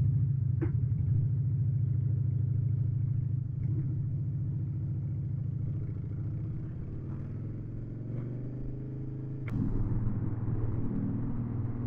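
Harley-Davidson V-twin engine running steadily at a low idle. About nine and a half seconds in there is a sharp click, and after it the engine note turns less even.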